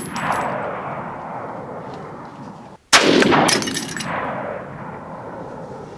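A Saiga 308 semi-automatic rifle firing one .308 Winchester round about three seconds in, a sharp crack followed by another sharp crack about half a second later and a long rolling echo. At the start, the echo of the previous shot is dying away.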